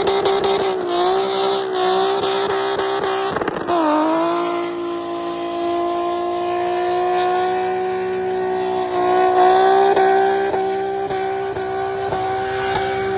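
A car engine at high revs under full throttle. Its pitch drops at two gear shifts, about one and three and a half seconds in, then climbs slowly as the car pulls, with light rattles on top.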